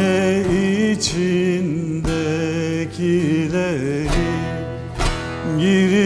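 A man singing a slow Turkish song to bağlama (long-necked lute) accompaniment, holding long, wavering notes.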